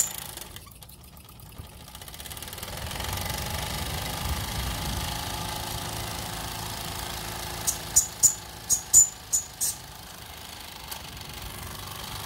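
Mamod TE1A toy steam traction engine running, its small cylinder and drive band turning over steadily. It opens with a sharp click, dips for about two seconds as it is put into reverse, then picks up again. A run of about seven sharp clicks comes about two-thirds of the way in.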